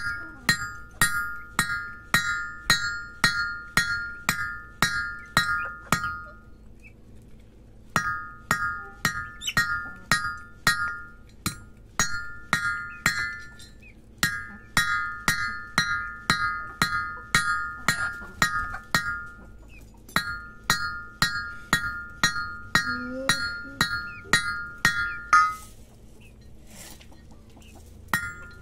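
Hand hammer striking a metal punch held on a steel plate, about two blows a second, each blow ringing with a bell-like metallic note. The hammering pauses briefly a few times and stops for about three seconds near the end.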